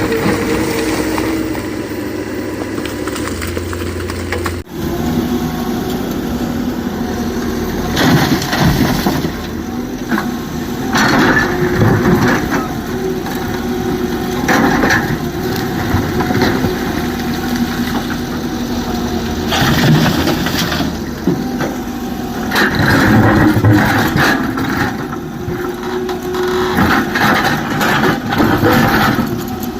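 Excavator diesel engine running under load while rock is dug and dumped, with repeated crunching and cracking of stones. The sound changes abruptly about four and a half seconds in.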